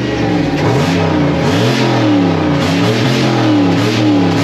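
Turbocharged, high-mileage stock-cam 5.3-litre V8 in a Chevrolet truck running just after start-up, its pitch rising and falling again and again with light revs.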